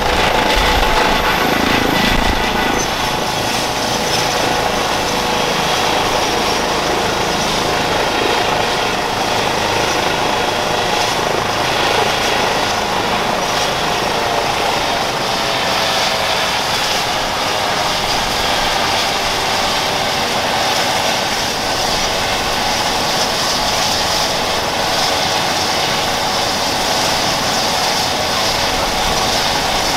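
Airbus EC135 P2+ helicopter running on the ground with its main rotor turning: a steady turbine whine from its twin Pratt & Whitney PW206B turboshafts over a constant rotor rush. The whine sinks slowly in pitch in the second half.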